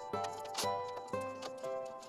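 Instrumental background music with notes changing about every half second, and a sharp click about half a second in as small letter tiles are slid and tapped together on a tabletop.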